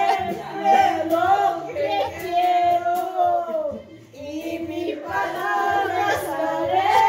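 A woman singing a serenata in long held notes that bend in pitch, with a short break about four seconds in.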